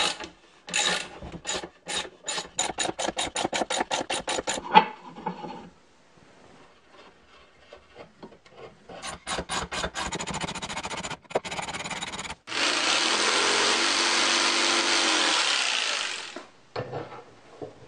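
Steel threaded rod with a keyway, turned through tight wooden bearing blocks so that the keyway rasps threads into the wood. It makes two runs of rapid, even scraping strokes, then about twelve seconds in a cordless drill spins the rod steadily for about four seconds.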